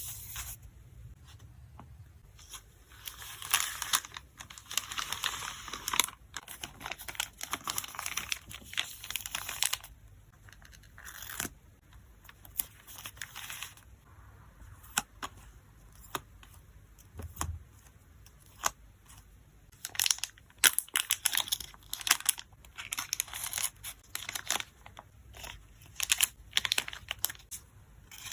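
Hands packing photocards in plastic sleeves and packaging: crinkling and tearing noises, with a long stretch of rustling a few seconds in and many short clicks and taps later.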